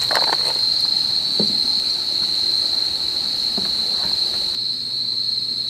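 Crickets chirring in a steady high-pitched chorus, with a couple of faint ticks.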